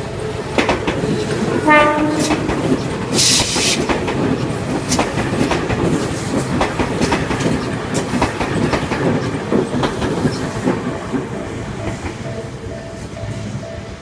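Tobu Spacia limited express electric train passing a level crossing, its wheels clacking over the rail joints, with a short horn blast about two seconds in. A steady crossing warning tone sounds under it, and the train noise dies away near the end.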